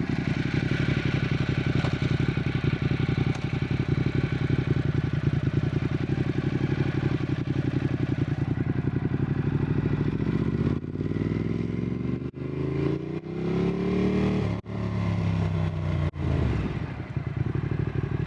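Motorcycle exhaust picked up close to the pipe: the engine runs at a steady speed, then about ten seconds in it accelerates, its note rising again and again, broken by several short drops in level as through gear changes.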